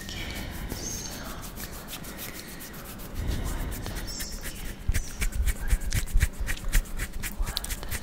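Hands rubbing and scratching bare skin on the arms close to a microphone. The rubbing grows louder about three seconds in, and from about five seconds in it turns into quick, irregular scratching strokes.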